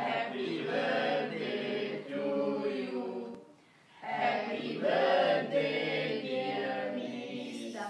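A group of men, women and children singing a birthday song together, unaccompanied, with a brief pause about three and a half seconds in.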